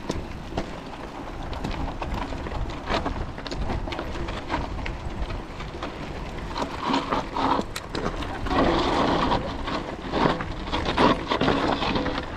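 Mountain bike ridden over a rough trail: tyres crunching over stones and dirt and the bike rattling with many small knocks, with wind rumble on the camera microphone. The clatter gets heavier and denser about halfway through.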